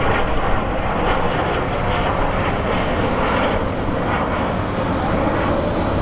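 Twin Pratt & Whitney PW615F turbofans of a Cessna 510 Citation Mustang at climb power as the jet pulls away after takeoff: a steady rushing roar with a thin high whine that slides slowly down in pitch.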